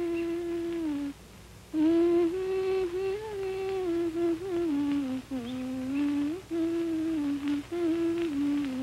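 A single voice humming a slow, wordless melody, holding long notes that step up and down in pitch, with a short pause about a second in.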